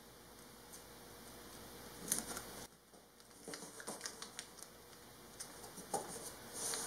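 Blue painter's tape being handled and pressed around two stacked pieces of wood: faint crinkling of the tape and small taps and clicks, starting about two seconds in and coming in scattered bursts.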